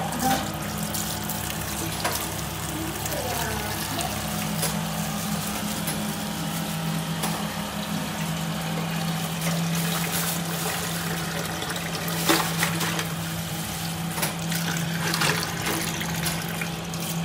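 Tap water running steadily into a steel bowl, filling it over live crabs, with a steady low hum beneath. A few sharp knocks come near the end.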